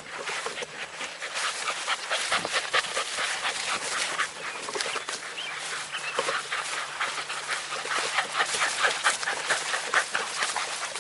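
Two black dogs running through tall grass and panting, with a steady, irregular rustle of grass brushing past.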